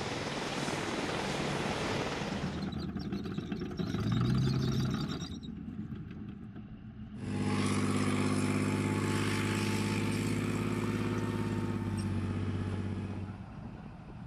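AH-64 Apache attack helicopters' rotors and turbines running, a steady noise that cuts off after nearly three seconds. From about seven seconds in, an M-88 armored recovery vehicle's engine runs with a steady low drone for about six seconds.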